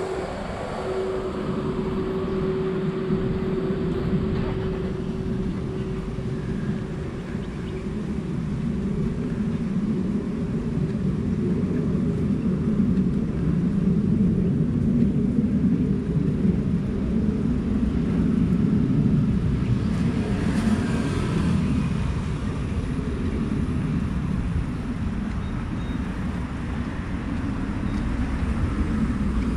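Road traffic on a busy street: a steady low rumble of passing cars, with one vehicle going by louder about twenty seconds in. A steady hum fades out over the first few seconds.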